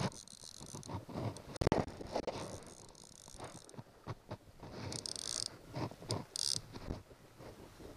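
Fly reel's ratchet buzzing in several short bursts as a hooked salmon pulls line off against the bent rod, with knocks and rustles from handling the rod.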